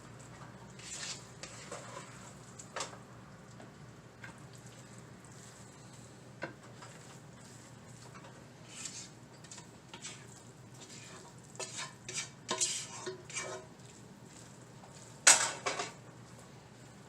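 A metal utensil scraping and clinking against a pot and dishes while handling cooked pancit noodles, in scattered short strokes, with the loudest clatter about fifteen seconds in.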